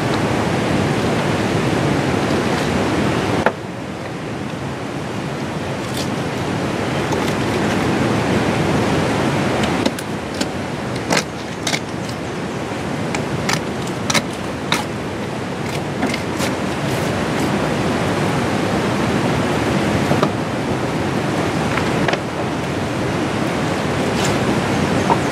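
A fish being filleted with a knife on a plastic cutting board: a handful of short, sharp clicks and taps of the blade in the middle of the stretch. Beneath them runs a loud, steady outdoor rushing noise that drops a few seconds in and then slowly builds back up.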